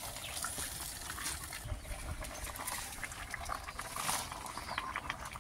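Irregular small crackles and pops over a steady hiss from a leaf-covered pan of catfish stew cooking over an open wood fire, with a brief swell about four seconds in.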